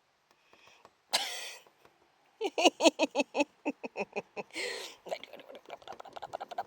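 A person laughing hard in a quick run of short bursts, about five a second, with a sharp breath before it and a gasping intake partway through.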